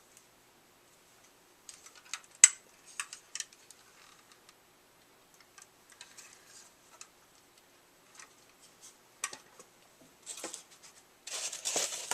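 Scattered small clicks and taps from a die-cast collectible car and its packaging being handled, with bursts of rustling about ten seconds in and near the end.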